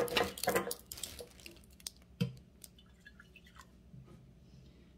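A little water poured into glass sauce jars: a few short splashes and drips with light clicks, most of them in the first half-second and one more about two seconds in.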